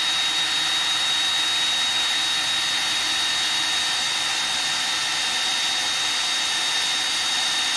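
Power drill running steadily, boring a screw hole through the metal wall of an ammo box, with a thin high whine over the motor. The bit is dull and cuts slowly.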